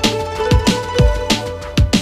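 Electronic background music with a heavy beat of deep kick drums, several to the second, under held synth notes.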